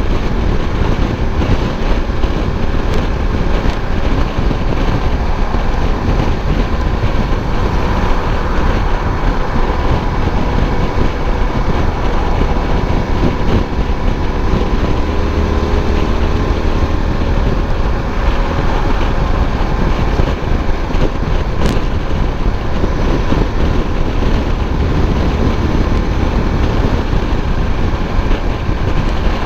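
Suzuki V-Strom 1050's V-twin engine running steadily while under way, with wind rushing over the microphone.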